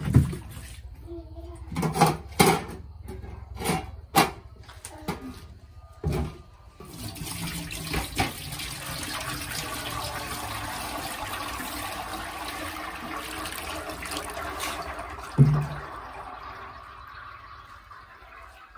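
A few knocks and clatters, then water running steadily for about eight seconds. It ends with a thump and trails off.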